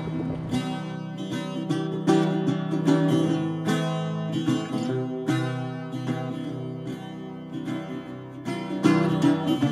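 Music dominated by plucked guitar, with picked notes coming about twice a second.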